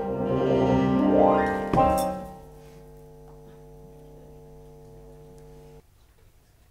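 Piano holding the closing chord of a show tune, then a rising sweep into a final accented chord about two seconds in, which rings out softly and stops abruptly near the end.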